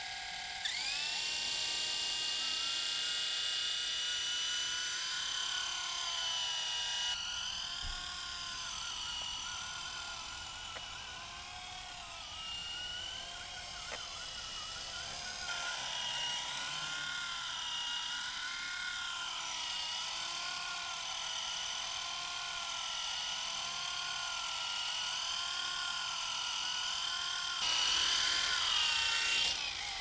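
Small electric RC helicopter: its motor and rotors spin up with a rising whine about a second in, then hold a high whine that wavers up and down in pitch as the throttle changes in flight, and it cuts off just before the end as the helicopter powers down.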